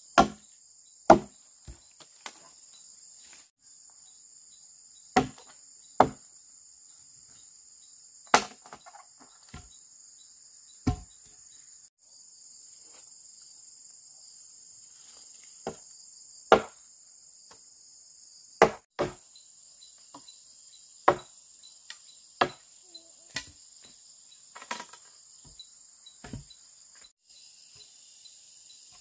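Sharp blows of a tool striking wood, irregular and a second or more apart, about fourteen in all. Under them runs a steady high-pitched drone of insects.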